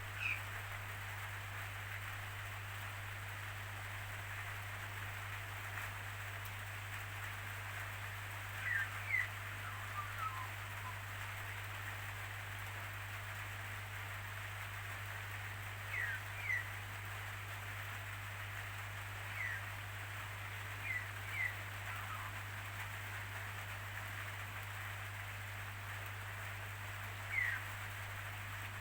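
Steady hiss of falling rain, with a low hum underneath. A bird gives short downward chirps every few seconds, often two in quick succession.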